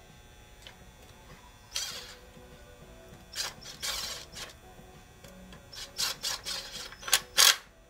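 Small cordless impact driver run in several short bursts, tightening the cam retainer plate screws into the aluminium block, with the two loudest bursts near the end.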